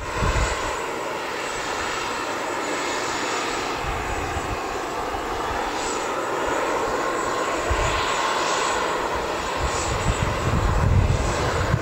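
Bombardier DHC8-Q400 turboprop airliner on the ground at engine start: a steady mechanical hum with a thin high whine. Low rumbling swells and fades, heaviest near the end.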